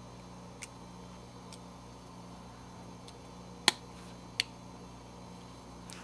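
Several small, sharp plastic clicks, the sharpest about three and a half seconds in, as the front case of a GoPro Hero3 Black is pressed and snapped back onto the camera body around its edges.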